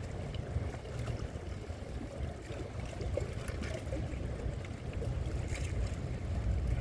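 Strong wind buffeting the microphone: a steady low rumble, with a few faint ticks scattered through it.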